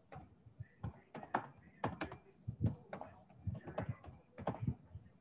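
Typing on a computer keyboard: irregular key clicks, several a second.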